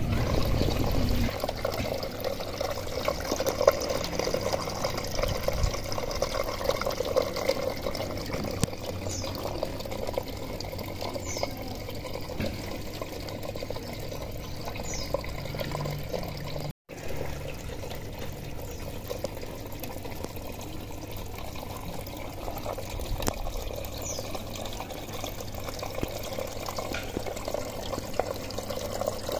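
A steady sound of running or splashing water, with a few faint short high chirps over it; it drops out for an instant about halfway.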